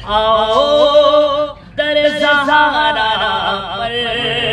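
A man's voice singing a naat unaccompanied, holding long notes that step between pitches, with a short pause for breath about one and a half seconds in.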